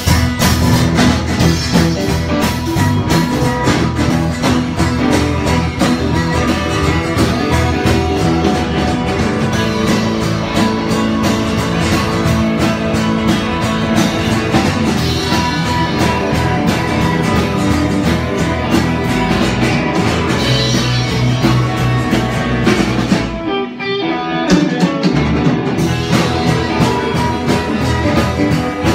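Live band playing loudly with guitars, bass guitar and drums, over a steady beat. About three-quarters of the way through, the band stops for about a second and then comes back in.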